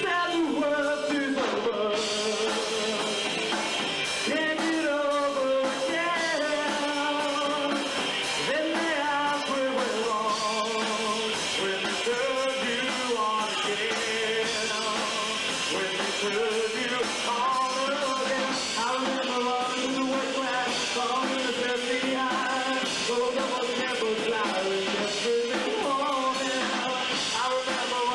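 Rock song with a sung lead vocal over band backing, running without a break.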